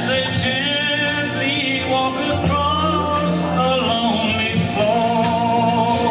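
Country song playing, a singer's melody over instruments and a steady beat.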